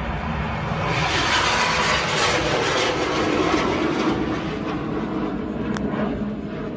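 A bang fai, a large homemade rocket, climbing with a loud rushing hiss that swells about a second in and fades over the next few seconds, over the low rumble of a vehicle.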